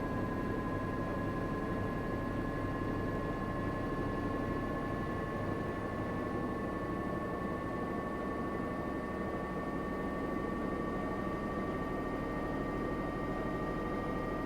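Washing machine running, its drum spinning with a steady rumble and a motor whine that climbs slowly and evenly in pitch, as the drum gathers speed in the spin.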